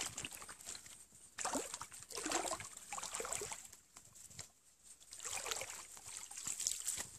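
Water sloshing and splashing in a shallow forest pool, in several short irregular bursts with quiet gaps between.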